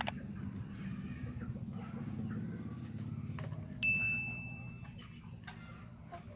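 Field crickets chirping, a fast run of short high chirps. About halfway through, a clear whistle-like tone holds for about a second, and there is a light click at the start.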